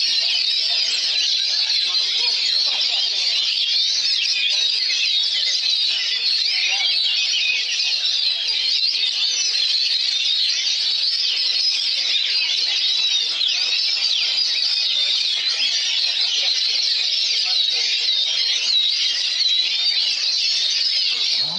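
Oriental magpie-robin (kacer) singing a continuous, dense stream of rapid high whistles and chirps.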